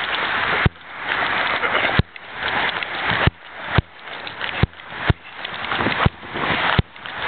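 Street noise heard as a rushing hiss. It swells and then cuts off abruptly with a sharp click, over and over, about every half second to a second and a half.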